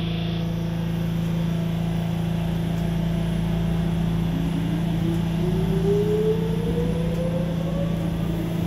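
Busan Metro Line 1 subway train running, heard from inside the carriage: a steady low hum and rumble, with the traction motor whine rising steadily in pitch from about four seconds in as the train picks up speed.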